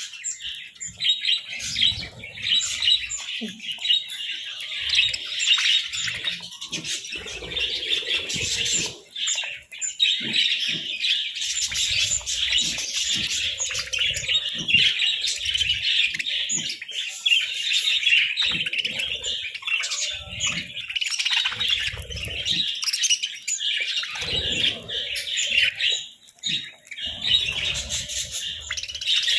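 Several budgerigars chirping and chattering continuously, with scattered soft knocks underneath.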